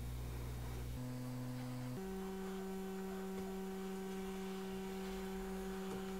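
Soft background music of long, held low synth notes, the pitch stepping up about one second in and again about two seconds in, then holding steady.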